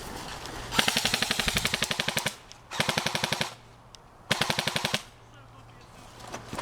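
Airsoft gun firing on full auto in three rapid bursts: a long one of about a second and a half, then two shorter ones.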